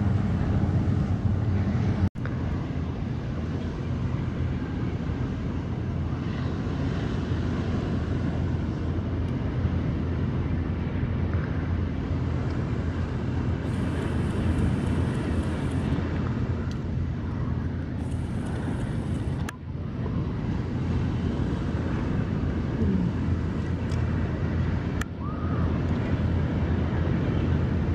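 Strong wind buffeting the microphone: a steady low rumble, broken by a few sudden brief cuts.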